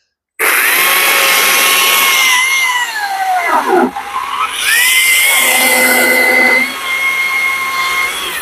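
Stihl battery chainsaw starting at once and running at full speed with a high whine as it cuts into a block of wood. About three seconds in its pitch sags and drops away. It spins back up a moment later and runs steadily.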